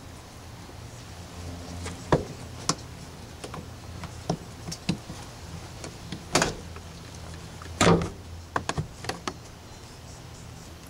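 Plastic interior trim panels of a 2006 Toyota Camry being pried out and handled: scattered clicks and knocks, the loudest a sharp knock about two-thirds of the way through followed by a quick run of clicks. A low steady hum lies underneath.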